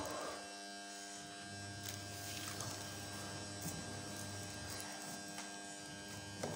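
Faint, steady electrical hum with a buzzy edge, and a few soft taps over it.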